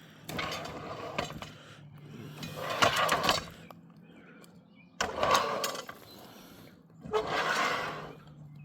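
Railroad turntable being pushed round in four surges, its rollers scraping along the ring instead of rolling.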